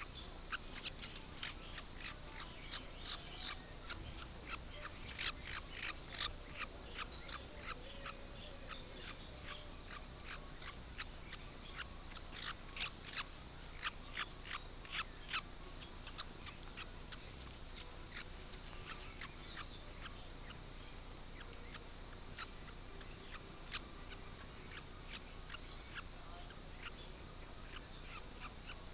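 A baby parrot chick calling in quick runs of short, high chirps, thickest through the first half and sparser later.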